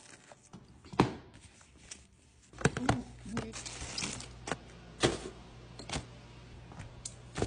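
Packing noises: plastic cling wrap crinkling over a glass food container, then a string of sharp clicks and knocks as the container and other items are set into an insulated lunch bag. The sharpest click comes about a second in, and a low steady hum sets in about two and a half seconds in.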